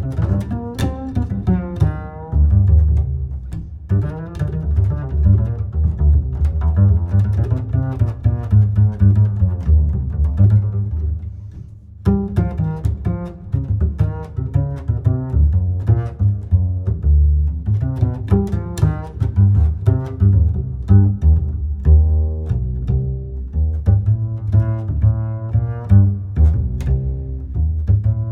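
Background music led by a plucked bass line with string instruments, at a steady beat.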